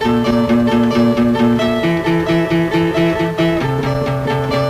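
Guitar on a 1985 underground rock demo cassette, playing a steady repeated picked figure at about five notes a second. The chord shifts about two seconds in and again near the end.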